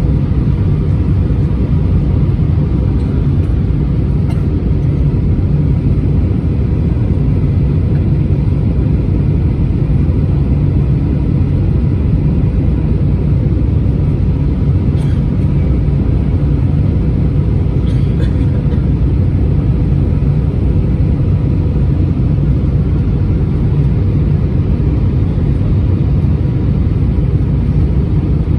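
Steady cabin noise inside an Airbus A320-231 in flight: a constant low drone of airflow and the IAE V2500 engines, with a faint steady hum above it.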